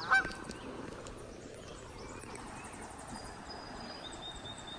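Outdoor background noise with faint high wildlife chirps, a rapid high trill and a held high whistle near the end. Just after the start comes one short, loud pitched call or squeak.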